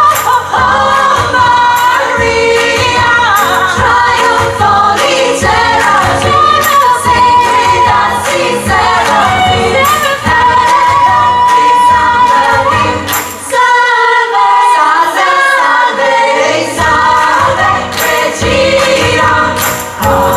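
Women's chorus singing an upbeat gospel-pop number with a lead female voice over a live band. About two-thirds of the way through, the bass and drums drop out for a few seconds while the voices carry on, then the band comes back in.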